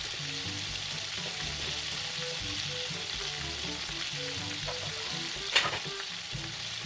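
Flour-coated chicken pieces deep-frying in hot oil, a steady sizzle, with one sharp click about five and a half seconds in.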